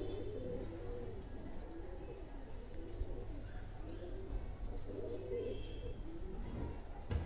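Domestic pigeons cooing, a string of low warbling coos overlapping one another over a steady low hum. A short low bump near the end.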